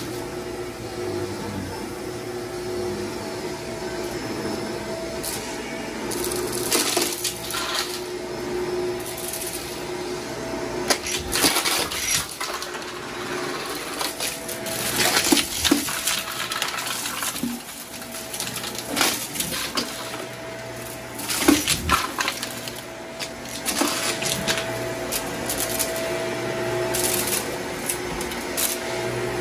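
Shark upright vacuum cleaner running steadily on carpet, with frequent sharp clicks and rattles of gritty debris being drawn up and crunching through the head and wand, in clusters that are loudest a little past halfway.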